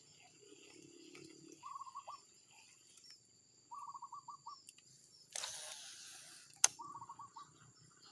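Short, rapid chirping trill of five or six notes, repeated three times, over a steady high insect drone. About two-thirds through comes a rushing sound of about a second, ending in a sharp click.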